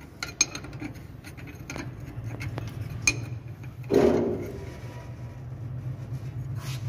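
A metal box-end wrench clicks and scrapes on a nut at the top of a truck's air-suspension bag, in scattered light clinks, with a louder knock about four seconds in. A steady low hum runs behind.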